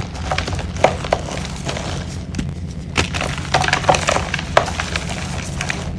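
Reformed gym chalk being crushed and crumbled, with irregular sharp crackles and snaps that come thickest about three to four and a half seconds in.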